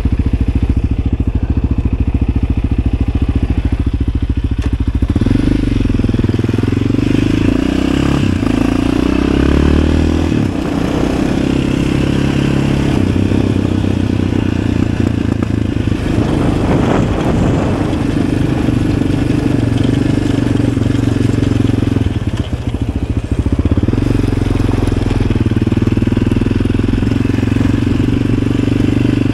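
Yamaha Raptor 700 ATV's single-cylinder four-stroke engine idling steadily for about five seconds, then pulling away and running under throttle, its engine speed rising and falling, easing off briefly twice.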